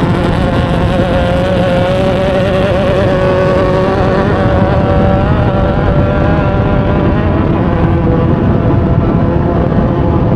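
Off-road race vehicle's engine running hard at a fairly steady pitch, heard from onboard over a dense low rumble.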